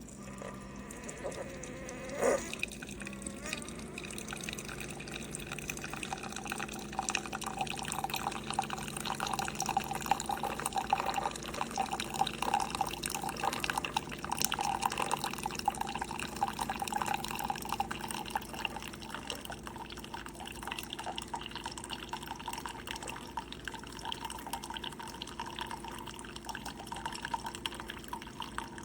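Keurig K-Supreme single-serve coffee maker brewing: coffee streaming and splashing into a cup, building over several seconds and easing off in the last part. A short knock about two seconds in.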